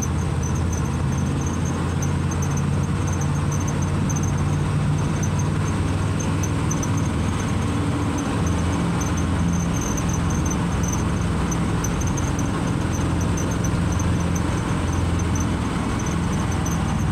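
GMC 370 big-block V8 of a 1958 Chevrolet 3600 truck running steadily under way, heard from inside the cab along with road noise. A high-pitched squeak chirps over and over above it.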